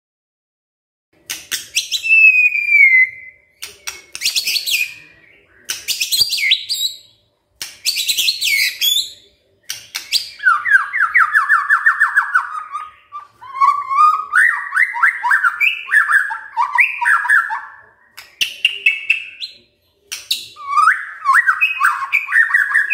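White-rumped shama (murai batu) singing: starting about a second in, a string of short, varied phrases of high whistles and sweeping notes separated by brief pauses, then in the second half longer runs of fast repeated, lower chattering notes.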